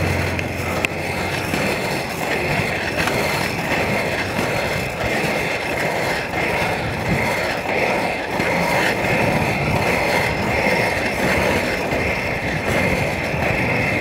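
Inline skate wheels rolling over asphalt: a steady, gritty rolling noise that rises and falls a little with the skating strides.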